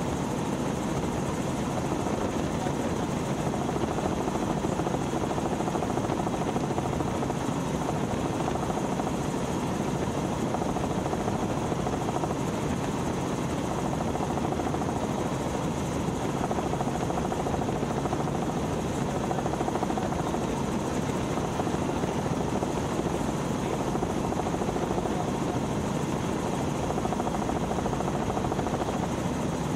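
Robinson R44 helicopter in forward flight, heard from inside the cabin: its rotor and piston engine running steadily.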